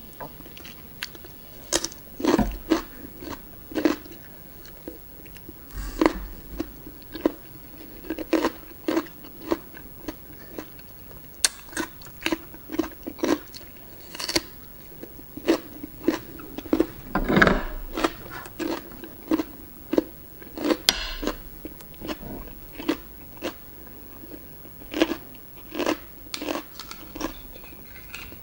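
Close-miked mouth sounds of a person eating raw oysters and cucumber: irregular wet chewing and biting with crisp crunches, a few every second.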